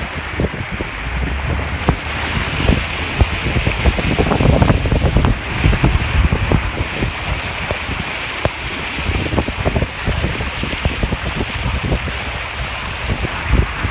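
Car driving slowly through deep floodwater: water sloshing and splashing around the body and wheels, with many irregular splashes and knocks, over wind on the microphone.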